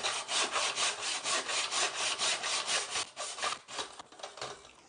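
Nobex mitre saw, a hand saw running in a mitre frame, cutting through wooden picture-frame moulding at a 45-degree angle with quick, even back-and-forth strokes that fade out near the end.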